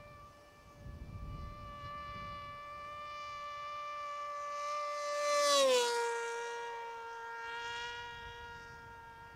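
Brushless electric motor and propeller of an AR Wing Pro flying wing whining steadily in flight. The whine grows louder, drops in pitch about halfway through, then fades.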